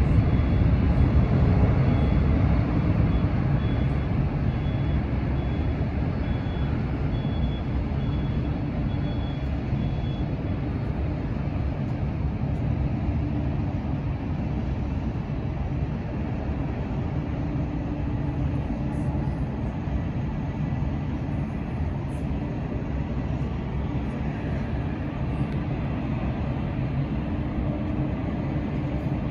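Qantas Airbus A380's four Rolls-Royce Trent 900 jet engines at takeoff thrust during the takeoff roll: a deep, steady rumble, loudest in the first few seconds and then holding even as the airliner runs down the runway to lift-off.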